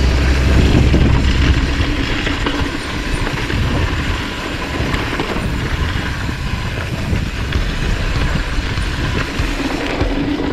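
YT Capra 29 enduro mountain bike rattling and clattering as it rides fast down a rough dirt trail, with tyre noise and many irregular knocks from the bike.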